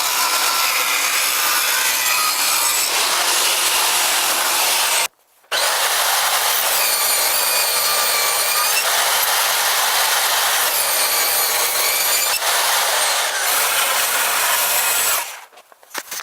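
Power tool cutting wood in two long passes, with a brief pause about five seconds in, then stopping near the end.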